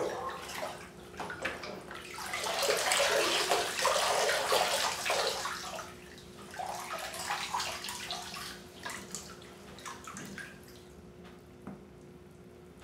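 Bathwater sloshing and splashing as a person stands up and moves in a full bathtub, with water streaming off a soaked fur jacket. The splashing is heaviest a few seconds in, then thins to scattered splashes and dies down near the end.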